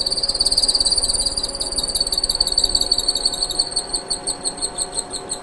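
A counterbore in a milling machine spindle squealing in rapid high-pitched pulses as its cutting edges start to bite into an ABS plastic block. The squeal fades toward the end.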